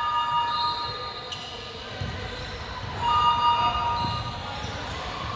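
Basketball game sounds on a wooden hardwood court: a basketball bouncing with dull thumps, and sneakers squeaking in two spells of steady high squeals, at the start and again about three seconds in. Distant voices echo in the hall.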